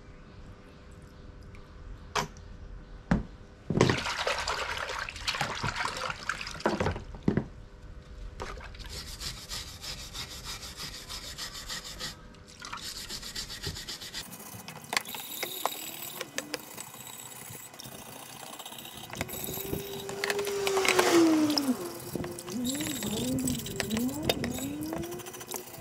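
Stiff brush scrubbing a blackened frying pan under soapy water, in stretches of scratchy rubbing broken by a few knocks against the pan and tub. In the second half, water sloshes and gurgles as the pan is tipped and moved in the tub, loudest a little past the middle.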